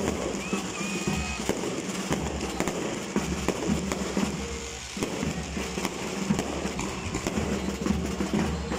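Aerial fireworks popping and crackling in irregular bursts, over music with a steady beat from a stadium sound system. A short whistle sounds about half a second in.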